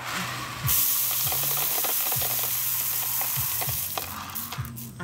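Dry grain pouring from a plastic basin onto a heap on a tarp: a steady hiss of falling kernels that starts about a second in and tails off near the end.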